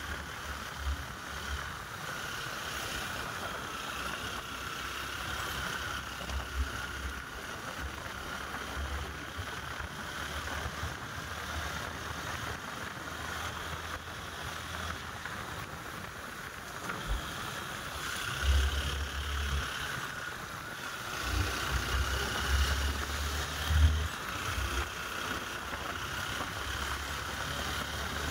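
Wind buffeting the microphone in irregular gusts, strongest in the second half, over a steady, fairly high hum.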